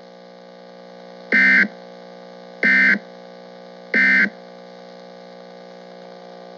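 Emergency Alert System end-of-message code: three short bursts of SAME digital data tones, evenly spaced a little over a second apart, over a steady electrical hum from the receiver.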